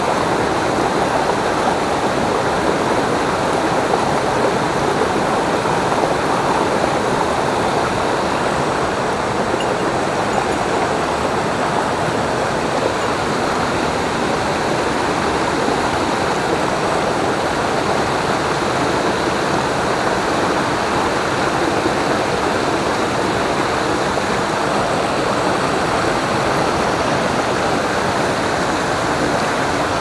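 Small mountain stream rushing steadily over boulders in little cascades, loud and close.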